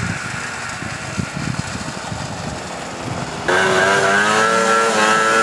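Ski-Doo 500 snowmobile engine running low and rumbly, then about three and a half seconds in it suddenly gets loud and revs hard, its pitch rising slightly as the machine goes at the hill.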